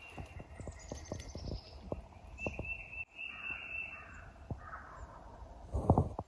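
Songbirds singing in the background, with a short high descending trill about a second in, over scattered soft knocks and rustles; a loud thump comes near the end.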